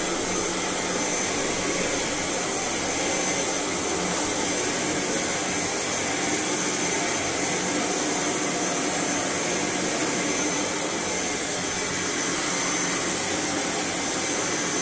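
Sebo Automatic X1 upright vacuum cleaner running steadily with its top cover off: an even rush of motor and airflow with a high steady whine over it. The machine runs again now that its loose height-sensor magnet has been put back in place.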